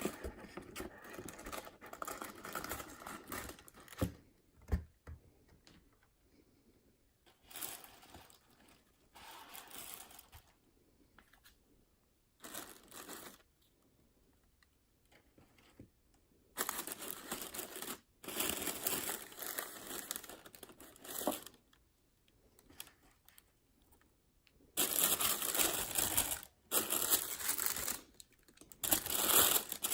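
Packaging being handled while unboxing: wrapping crinkling and tearing in irregular bursts, loudest in the last five seconds, with two soft knocks about four seconds in.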